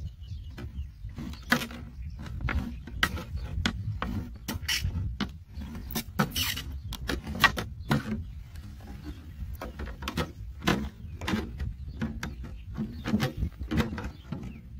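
Knife blade cutting and prying slits into the side of a thin clear plastic bottle: irregular sharp crackles and clicks of the flexing plastic, several a second, over low background noise.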